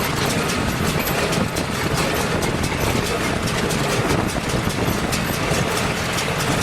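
A John Deere 5410 tractor's engine running steadily while driving a New Holland BC5060 small square baler, whose mechanism adds a fast, irregular clicking and clatter on top.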